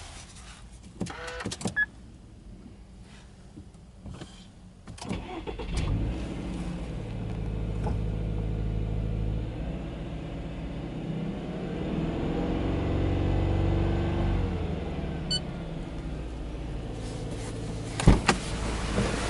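Subaru Impreza's 2.0-litre flat-four (boxer) engine heard from inside the cabin: a few clicks, then the engine starts about five seconds in and settles into a steady high idle near 2,000 rpm, its pitch rising and falling gently once a few seconds later. A sharp knock near the end.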